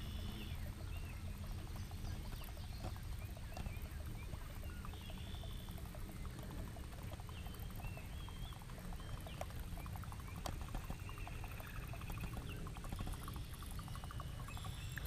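Shakespeare Agility baitcasting reel being cranked to retrieve a buzz bait: a fast run of light ticks for most of the stretch, over a steady low rumble.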